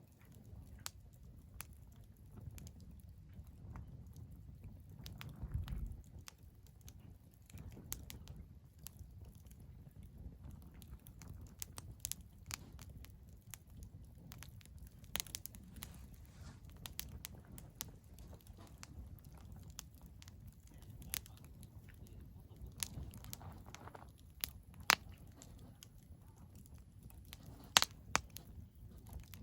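Wood fire burning in a fire pit, crackling with scattered sharp pops, the loudest few near the end, over a low rumble.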